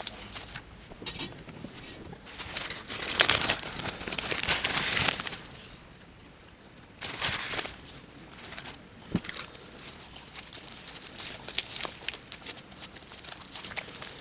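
Crinkling and rustling from hands handling slime-kit materials, with scattered small clicks. The loudest stretch is a rustle about three to five seconds in.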